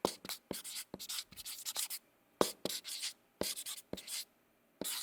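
Marker pen writing on a board: a quick run of short scratchy strokes, with two brief pauses.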